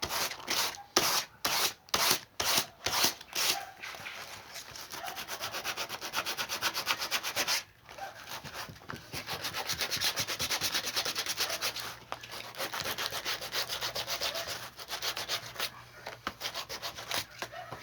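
Sandpaper rubbed back and forth over inner-tube rubber, roughening it so the patch glue will take. A few slow, separate strokes come first, then fast scrubbing that breaks off briefly twice.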